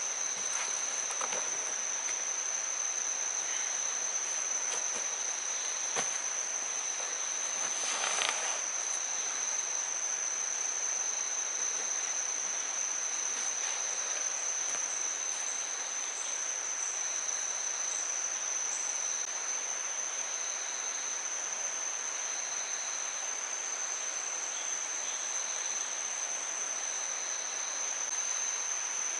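Steady high-pitched chorus of tropical forest insects, with a lower insect call pulsing about once a second. A sharp click about six seconds in and a brief rustle a couple of seconds later.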